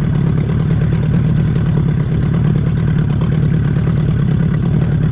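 Boat's outboard motor running steadily at low trolling speed, a constant hum without changes in pitch.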